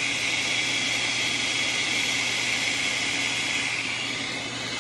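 Countertop food processor's electric motor running steadily, whirring as it beats eggs.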